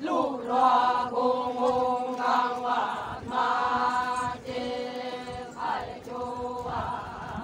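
Konyak Naga women's group chant sung in unison for a line dance: long held notes in short phrases of about a second each, separated by brief breaths.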